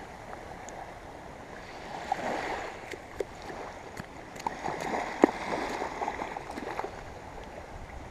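Small waves washing and lapping in the shallows at the water's edge, with a few short, sharp clicks, the loudest about five seconds in.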